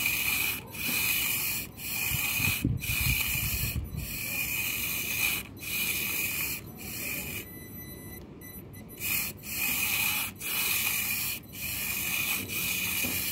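Micro 1/64-scale RC car's small electric motor and gearbox whirring in repeated bursts of about a second each as the throttle is blipped on and off, with a short quieter pause past the middle; the car is hung up on a small dowel and needs momentum to climb it.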